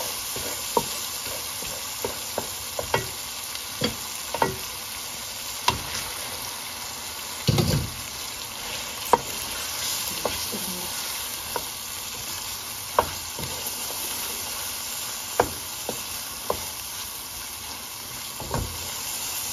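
Spiced masala frying and sizzling in a metal pot as raw chicken pieces are added and stirred in. A spatula knocks and scrapes against the pot now and then, with a heavier thud about halfway through.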